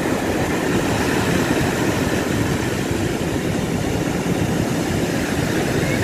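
Rough surf breaking and washing up a sandy beach, a steady rush of water with a heavy low rumble.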